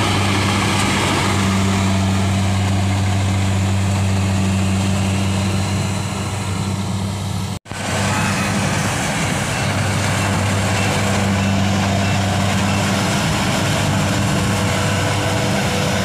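Kubota crawler combine harvester running steadily while cutting and threshing rice, a loud even engine hum with the clatter of the machine. The sound cuts out for an instant a little past halfway, then carries on the same.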